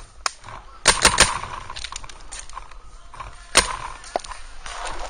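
Paintball markers firing: a quick burst of three sharp shots about a second in and a single loud shot about three and a half seconds in, with fainter pops of other markers around the field in between.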